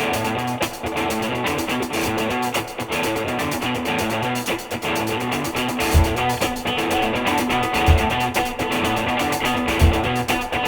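Background music led by guitar, with a deep low beat about every two seconds from the middle onward.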